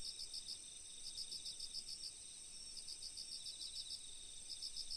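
Crickets chirping in short trills of several quick pulses, repeating about once a second over a steady high-pitched insect hum.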